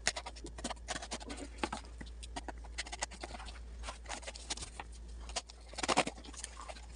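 Packing tape on a small cardboard box being slit and scraped with a pointed tool, with hands handling the box: a run of irregular light clicks and scratches, with a louder scratchy burst about six seconds in.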